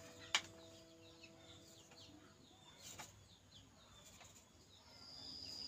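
Wood carving with a knife on a wooden golok sheath blank, with a sharp wooden knock about a third of a second in and a softer one around three seconds. Faint small-bird chirping sounds throughout, and a steady high insect buzz comes in near the end.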